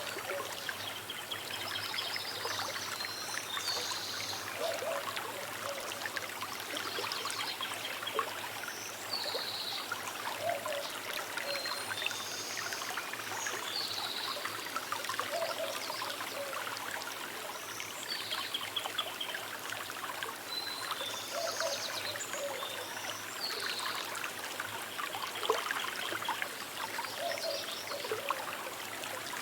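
Small river trickling and splashing steadily over stones, with birds calling in short repeated phrases every few seconds.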